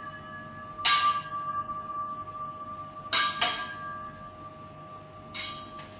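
Teppanyaki chef's steel utensils clanging together as he juggles them over the griddle: five sharp metallic clangs, one about a second in, then two close pairs, over a steady high tone.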